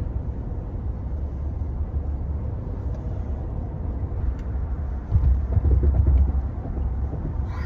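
A steady low rumble, louder for about a second and a half about five seconds in.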